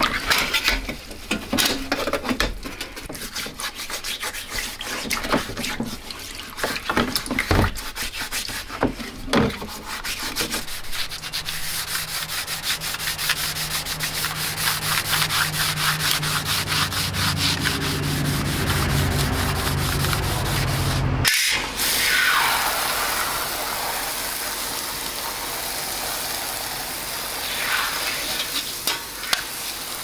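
Abrasive sanding sponge scrubbed rapidly back and forth over a bare steel keyboard backplate lying on concrete, scouring off residue after electrolytic rust removal. About two-thirds through it cuts to the steady hiss of a water spray nozzle jetting the plate.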